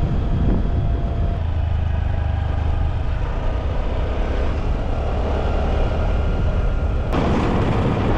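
Motor scooter engine running steadily while riding, under a rush of wind and road noise. The noise grows rougher about seven seconds in.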